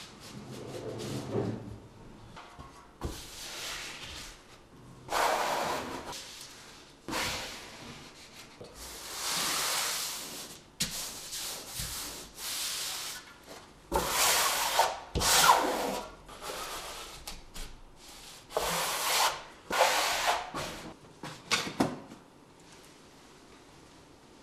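Irregular rubbing and scraping strokes, each a second or two long, as sheets of fleece-faced KERDI waterproofing membrane are pressed and smoothed by hand onto a wall freshly coated with thin-set adhesive. The strokes are loudest toward the middle and die away near the end.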